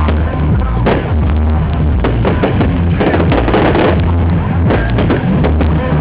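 Loud music with a heavy bass line and a strong drum beat.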